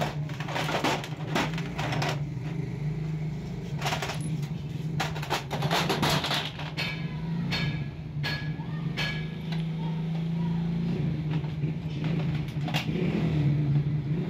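Metal clinks and knocks of engine parts and hand tools being handled during engine assembly, over a steady low mechanical hum.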